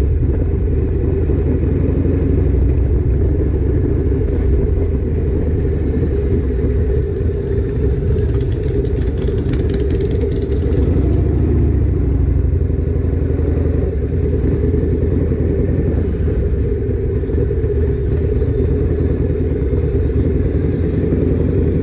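Chopper motorcycle's engine running steadily at low cruising speed, a deep, even exhaust note, with a brief hiss near the middle.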